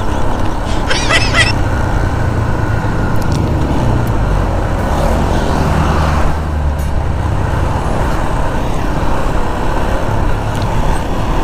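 Motorcycle engine running and wind rushing over the rider's microphone while riding on the road. The low engine note changes about six seconds in.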